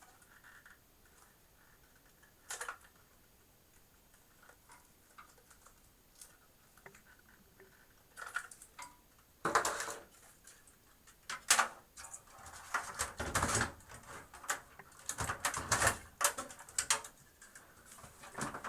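Hands working parts and cables into a rack-mount server case: a few scattered clicks and taps, then from about halfway a busier run of clattering knocks and rustles.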